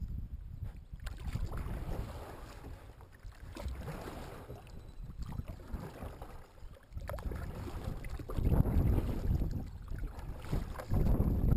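Wind gusting against the microphone in a low, uneven rumble, loudest about eight seconds in and again near the end, with the light swish and splash of a kayak paddle being stroked through the water.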